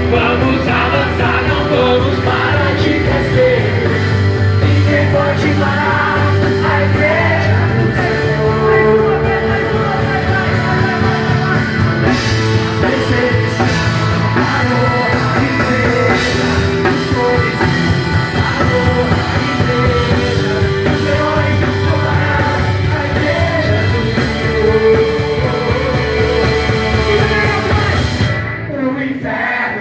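Loud rock-style worship song: a band playing with voices singing, the sound thinning briefly near the end.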